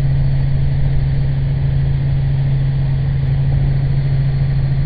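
Robinson R44 helicopter in cruise flight, heard from inside the cabin: the engine and rotors make a steady, loud drone with a strong low hum.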